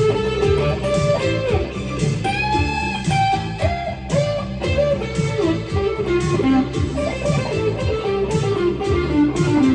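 Electric guitar through a Friedman BE-OD Deluxe overdrive pedal playing a sustained lead line with string bends, over a backing track with a steady beat.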